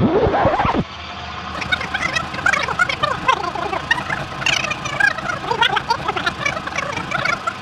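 People's voices talking and laughing over one another, the words hard to make out.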